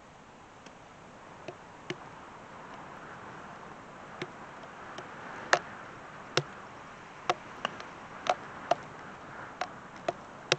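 About a dozen short, sharp clicks and ticks at irregular intervals over a faint hiss, the loudest about halfway through. The click of a golf club chipping a ball off the turf falls among them.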